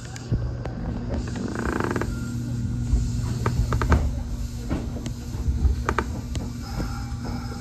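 Kintetsu 1021-series electric commuter train heard from the driver's cab as it rolls slowly along the platform and brakes to a stop. A steady low running hum carries scattered clicks and knocks, and a faint higher tone comes in near the end.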